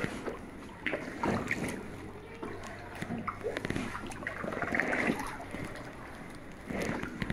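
Paddle strokes splashing and water sloshing around an inflatable kayak, a series of uneven splashes and knocks.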